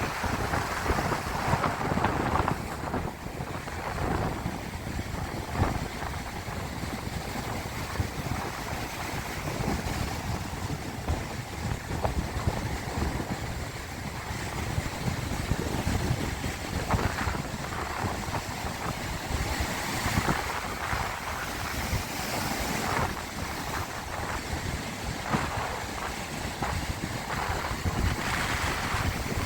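Sea waves washing and splashing, with gusty wind buffeting the microphone.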